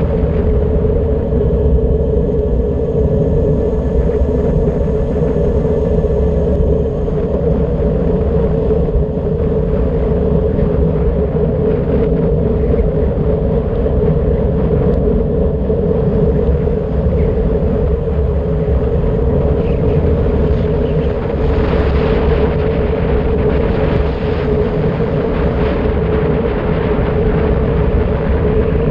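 Steady rush of wind over the camera microphone and tyre noise on asphalt during a fast bicycle descent at about 60–70 km/h, with a constant hum running through it.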